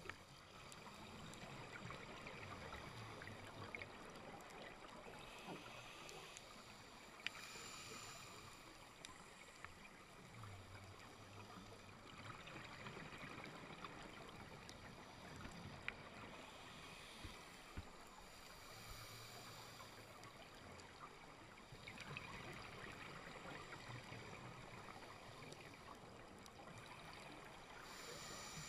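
Faint, muffled underwater sound through a camera housing: a scuba diver's regulator breathing, with swells of exhaled-bubble hiss every several seconds and low rumbles between them, plus a few scattered sharp clicks.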